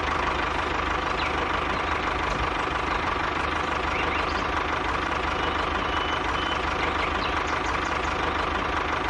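Small electric motor running steadily, with a constant whine over a buzzing hum.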